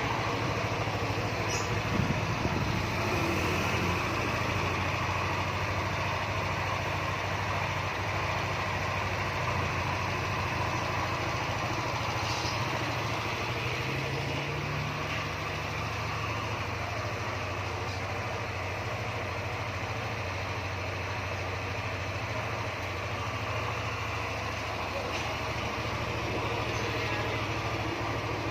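Yamaha NMAX scooter's single-cylinder engine idling steadily, its pitch stepping up slightly about halfway through.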